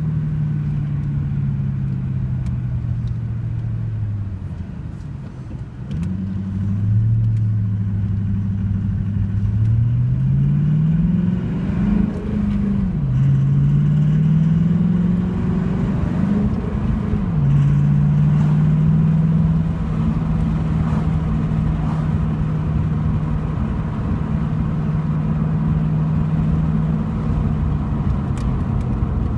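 1996 Ford Mustang GT's 4.6-litre SOHC V8 being driven: its pitch climbs and drops several times through the gears, then holds steady while cruising and eases off near the end. It is recorded to capture a noise heard while cruising after a PI parts swap.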